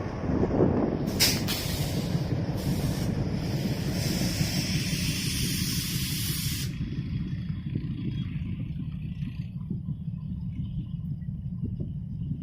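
Train's air brakes hissing over a steady low rumble: a loud hiss of released air starts abruptly about a second in and cuts off suddenly near the middle, trailing away softly after.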